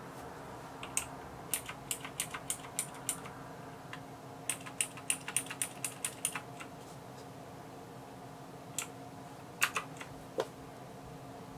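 Keys of a Maxtill TRON G610K mechanical keyboard being pressed, sharp separate clicks in quick runs: about eight in the first few seconds, a denser run around the middle, then a few single clicks near the end.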